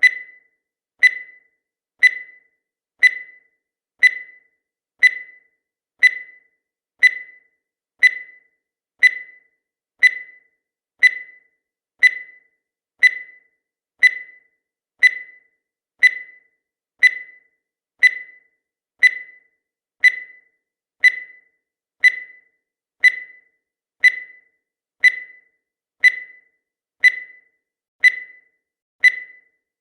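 Countdown timer sound effect: a short high beep once every second, each one fading quickly, in a steady, even rhythm.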